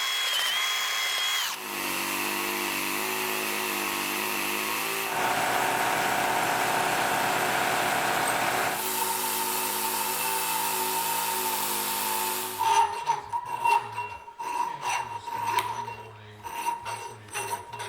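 Electric drill spinning up with a rising whine, then boring steadily through sheet metal with a 3/8-inch bit for about eleven seconds. From about thirteen seconds in it gives way to irregular, sharp scraping strokes as the drilled hole is worked square.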